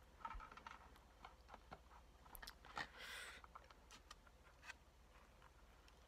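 Near silence with faint scattered clicks from quiet chewing and from handling a cardboard Big Mac box, and a brief rustle about three seconds in.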